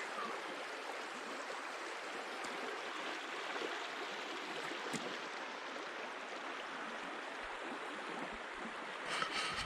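Shallow river water running steadily, an even rushing and babbling where the partly frozen river runs open.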